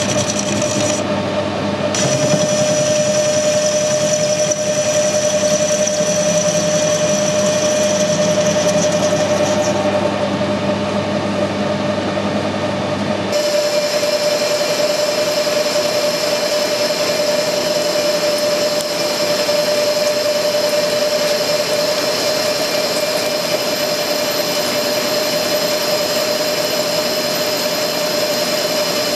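Metal lathe running, its spindle turning a chuck-held steel workpiece with a steady hum and whine. The tone changes abruptly about 13 seconds in.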